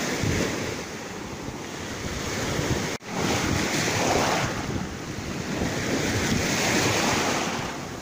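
Small Sea of Azov waves breaking and washing up over sand and shell grit at the water's edge, in slow swells, with wind buffeting the microphone. The sound drops out for an instant about three seconds in.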